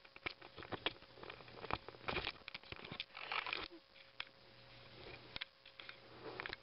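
Kittens playing close to the microphone: irregular rustling of bedding with light clicks and scuffs as they bat and chew at a string toy.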